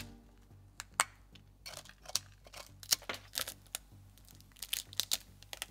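A knife chipping and prying a hardened beeswax shell off a steak, the brittle wax cracking and breaking into flakes. It makes irregular sharp cracks and crunches, a few each second.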